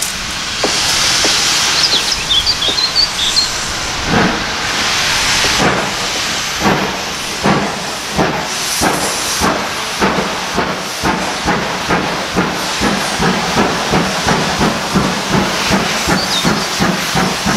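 Small steam tank locomotive, GWR 1340 Trojan, getting under way: a loud hiss of steam at first, then its exhaust chuffs start slowly and quicken to about two a second.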